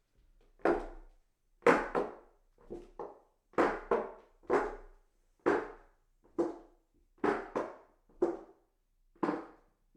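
Footsteps walking up hollow wooden stairs: a knock about once a second, several steps landing as two quick knocks.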